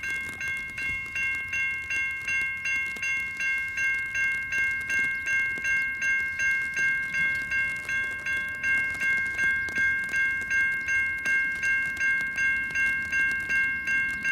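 Safetran Type 3 electronic level crossing bells ringing rapidly and evenly, about two to three strikes a second: the crossing has activated to warn of an approaching train.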